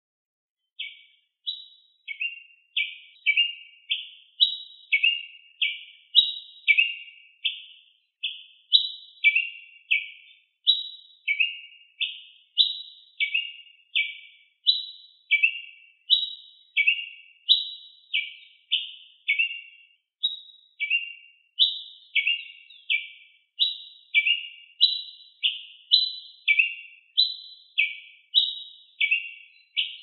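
Tiê-preto (ruby-crowned tanager) singing: a long, steady series of short, clear notes, about one and a half to two a second, alternating between a higher and a lower pitch. It starts about a second in.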